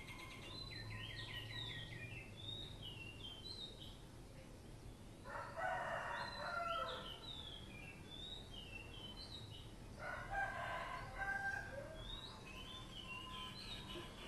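Rooster crowing twice, about five seconds apart, each crow lasting just under two seconds, over steady chirping of small birds.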